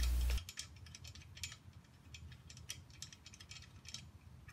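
A ratchet wrench clicking in short, uneven runs while driving the crash-bar mounting bolts, starting about half a second in.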